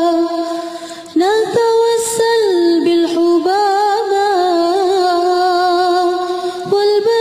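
A woman singing an Arabic devotional poem (syair) in long, ornamented held notes with vibrato. A held note fades away near the start, then the next line begins about a second in.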